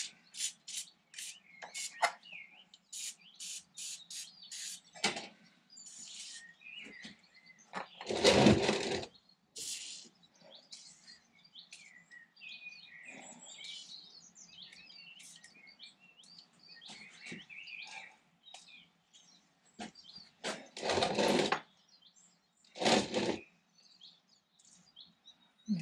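Small birds chirping. There are also a few louder rushing noises about a second long, one about a third of the way in and two near the end.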